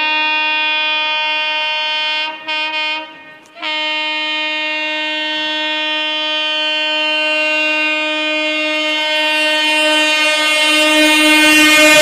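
Horn of an approaching Indian Railways WAP-7 electric locomotive, sounded almost non-stop: one long steady blast, broken about two seconds in by a few quick toots and a short pause, then held again and growing louder as the locomotive draws near. Rail running noise rises under it near the end.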